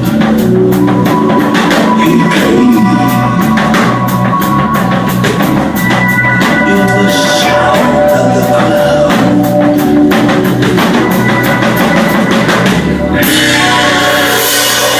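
Rock band music with a drum kit keeping a steady beat and singing over it; the drumbeat stops near the end.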